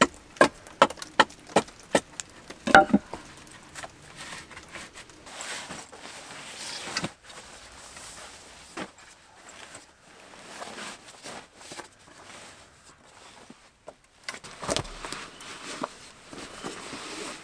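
Round wooden log slats of a bed knocking together in a quick string of sharp clacks as they are handled and set in place, followed by quieter rustling as a sleeping bag is spread over them, and one more wooden knock near the end.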